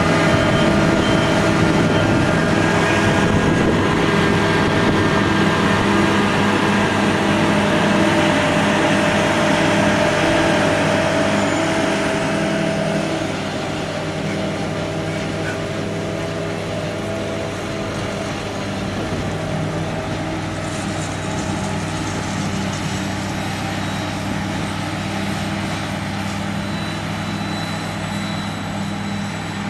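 Self-propelled forage harvester running at work: a steady heavy diesel engine note with a layered mechanical hum from the machine, growing quieter about thirteen seconds in.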